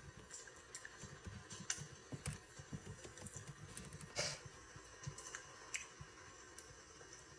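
Faint, irregular clicks and taps, five or six of them, the loudest about four seconds in.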